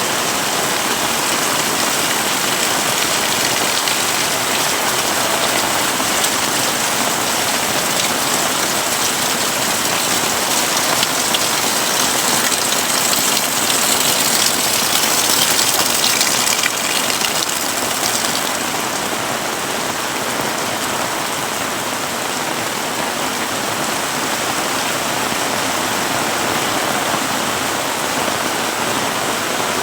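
Heavy rain pouring steadily, swelling louder for a few seconds around the middle and then easing slightly.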